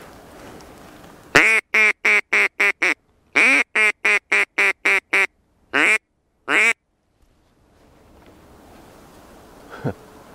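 Duck call (манок) blown to imitate a hen duck: a loud run of quick quacks, about four a second, in two series, then two longer drawn-out quacks. It is calling to ducks to draw them in to the decoys.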